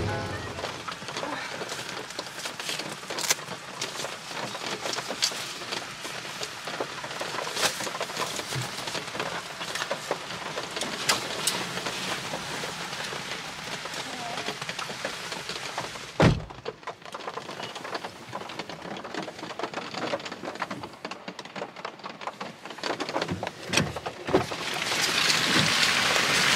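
Steady rain pattering on a car, with many short sharp drop hits. There is one heavy thump about sixteen seconds in, and the rain grows louder near the end.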